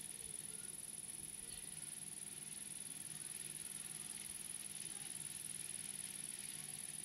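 Steady, high-pitched insect song: one continuous buzz with no breaks or pulses.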